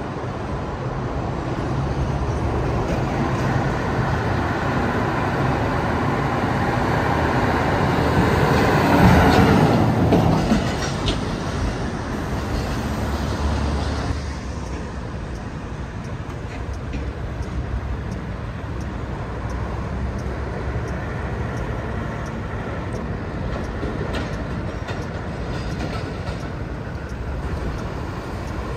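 A large vehicle passing close by: its noise builds up, peaks about nine seconds in with a falling sweep, and then settles into a steadier, lower rumble of traffic.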